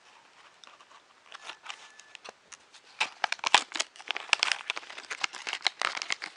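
Plastic packaging being cut open and handled: a few faint clicks at first, then dense, irregular crinkling and crackling from about halfway through.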